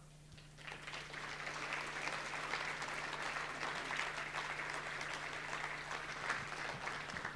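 Audience applauding: many hands clapping, building up within the first second or so, holding steady, then thinning out near the end.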